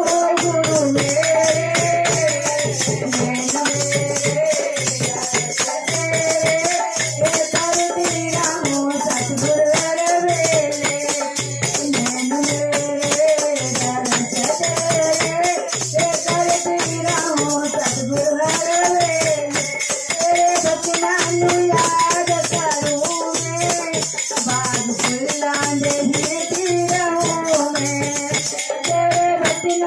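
Women singing a Hindu devotional bhajan to a steady beat on a dholak barrel drum, with wooden kartal clappers and manjira hand cymbals jingling along.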